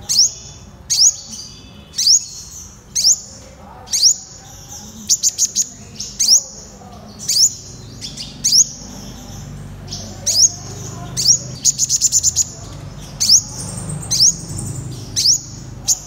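Purple sunbird calling: sharp, high notes that sweep upward, about one a second, broken twice by a quick run of five or six rapid notes.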